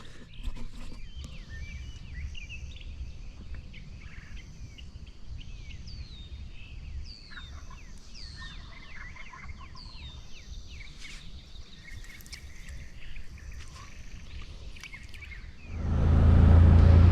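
Wild birds calling with short, repeated chirps over a low rumble, turkey gobblers among them. Near the end a vehicle engine comes in suddenly and much louder.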